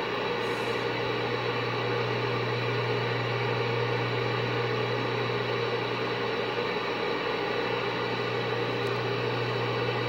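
Galaxy CB radio receiver hissing with open-channel static and a steady low hum, with no station coming through.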